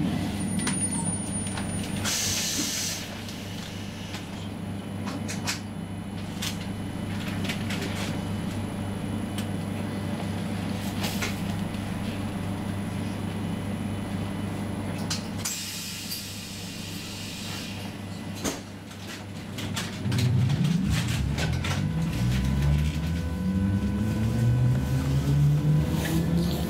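Roslagsbanan X10p electric train standing at a platform with a steady low hum, broken by two short hisses of air. About 20 seconds in, the traction motors start a whine that climbs steadily in pitch and grows louder as the train pulls away.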